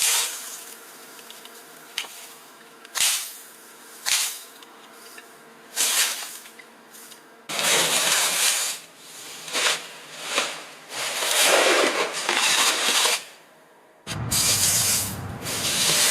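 A series of hissing spray bursts, some short and some lasting a second or two, with abrupt cuts between them.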